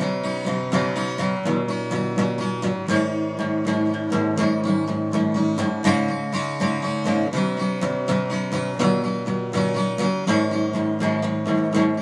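Acoustic guitar strummed in a steady rhythm, the chords changing every few seconds.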